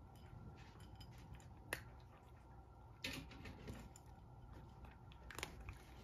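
A cat crunching dry kibble: a few faint, scattered crunches from its teeth over a steady low hum.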